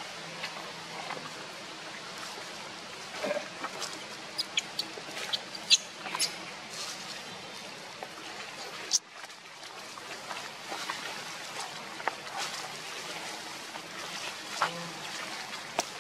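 Monkeys giving scattered short, high squeaks and clicks over a steady background hiss, with a cluster of sharp ticks about four to six seconds in.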